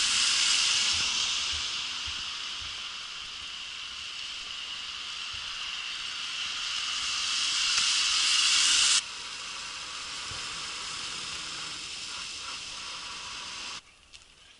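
Tyres hissing on a wet, slushy road as vans pass, over a steady hiss of falling sleet and rain. The hiss swells at the start and again towards nine seconds in, then drops abruptly to a quieter steady hiss, and falls almost to quiet near the end.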